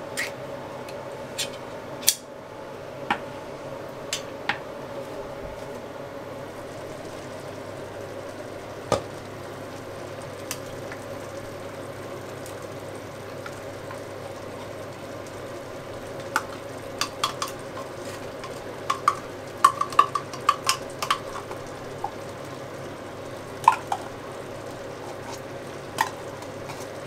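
A utensil stirring a beef sauce in a cooking pot, knocking and clinking against the pot now and then, more often in a cluster about two-thirds of the way through, over a steady low hum.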